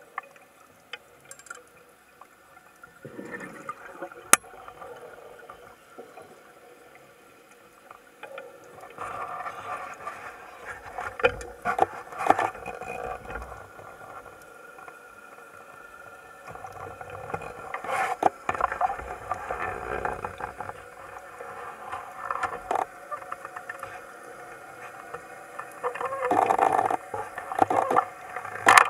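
Underwater sound of a diver breathing on a Divesoft Liberty electronic closed-circuit rebreather, heard through a camera housing. Gas moves through the loop and mouthpiece in uneven swells every few seconds, with a few sharp clicks, one of them about four seconds in.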